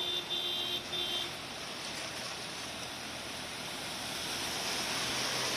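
A vehicle horn honks in a few short toots during the first second, over a steady rush of floodwater churned up by vehicles driving through a waterlogged road. The rush grows a little louder near the end.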